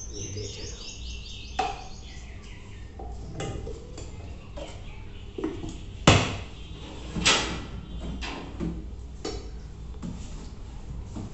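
Metal paint tins being handled: scattered light clinks and knocks, with two louder metallic clunks about six and seven seconds in as the lid is pressed back onto a tin of wood sealer.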